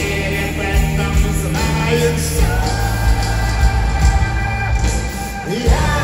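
Live band performing a pop-rock song, a male vocalist singing over bass and drums, heard from the audience. His voice holds long notes and sweeps up to a new phrase near the end.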